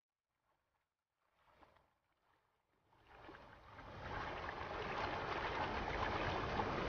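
Rushing white water of a river in spate pouring over rocks: a steady rush of water noise that fades in about three seconds in and builds over the next second. Before that there are only faint, brief sounds.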